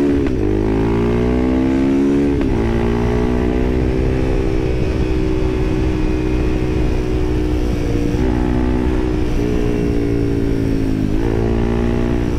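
Royal Enfield Himalayan 450's single-cylinder engine, through an aftermarket slip-on exhaust with a decat pipe, pulling hard while riding. Its pitch climbs and drops suddenly at each upshift: just after the start, about two seconds in, and again near the end, with steadier running between.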